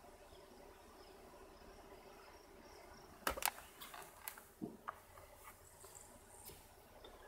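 Faint steady high chirring of crickets. About three seconds in comes a brief cluster of sharp clicks and knocks, loudest at first and fading out over about two seconds.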